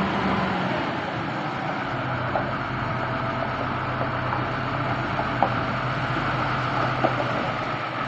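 Diesel engine of a multi-axle mobile truck crane running as the crane creeps forward, a steady low hum under constant noise, with two sharp clicks in the second half.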